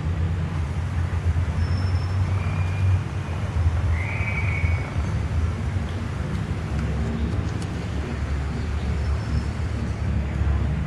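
Steady low rumble of street traffic, with a few short high whistled bird calls, the longest about four seconds in.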